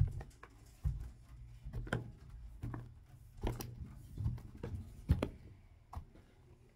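Footsteps in stiletto-heeled pumps on carpeted stairs and landing: about eight muffled thuds with light clicks, roughly one a second, stopping about six seconds in.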